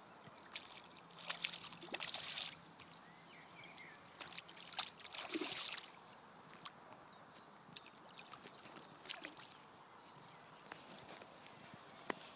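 Water splashing from a hooked carp thrashing at the surface close to the bank, in a few bursts of about a second each, with scattered small clicks between them.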